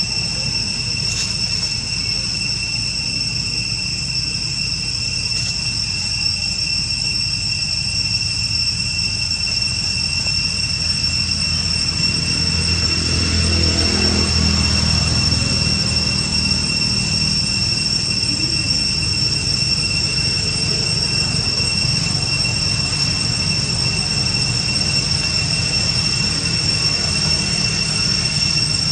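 A steady high-pitched whine on two constant tones over a low rumble. The rumble swells for a few seconds about halfway through.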